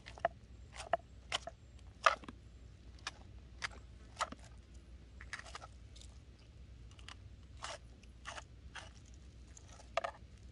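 Knife crunching through a crappie's flesh and bones as it is filleted on a plastic cutting board: a run of short, irregular crisp crunches, the loudest about two seconds in.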